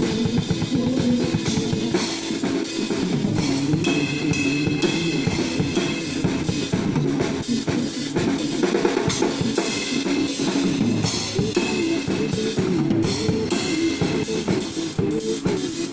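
Pop song playing, with a drum kit (kick and snare) keeping a steady beat under guitar.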